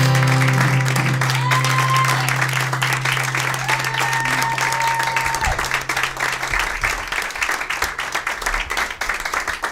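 Small audience applauding steadily, while the final acoustic guitar chord rings out underneath and fades away a little past halfway.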